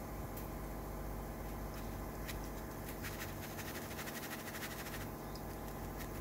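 Crisp fried garlic slices rustling and clicking in a stainless mesh strainer as it is shaken, a rapid patter of small clicks for about two seconds midway through. A steady low hum sits underneath.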